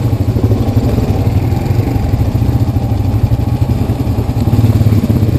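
ATV engine running close to the microphone at low trail speed, a steady low drone that swells briefly about four and a half seconds in.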